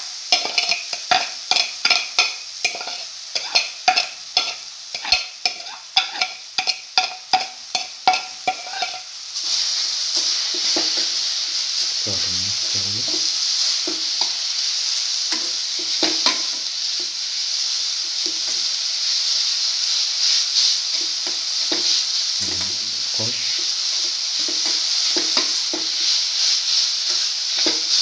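A metal utensil tapping and clinking against a steel pan, about three quick ringing strikes a second, for the first nine seconds. Then a steady sizzle with scraping as banana pieces and grated coconut fry in oil and are stirred with a metal spatula.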